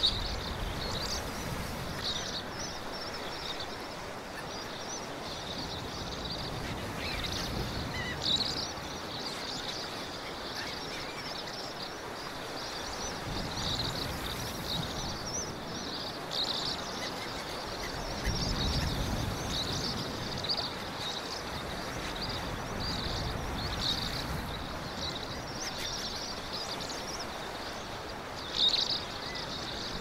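Seaside ambience: a soft, steady wash of sea and wind that swells a little now and then, under constant high-pitched chirping.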